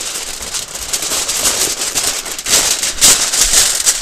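Heavy-duty aluminium foil crinkling and crackling as hands press and crimp it down tight over a pan, growing louder about two and a half seconds in.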